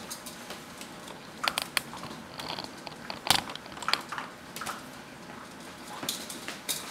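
Vizsla puppies feeding from a shared metal bowl: irregular clicks and knocks of mouths and paws against the bowl, with the loudest knock about three seconds in.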